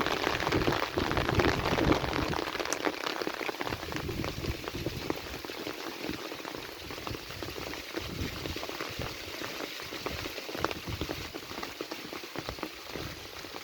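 Heavy rain falling, a dense patter of drops splashing on surfaces, a little heavier for the first couple of seconds and then steady.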